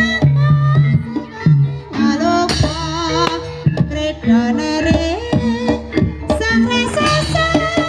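Javanese gamelan-style ebeg accompaniment: a singer with a high, wavering vibrato over kendang hand-drum strokes and sustained low instrument notes.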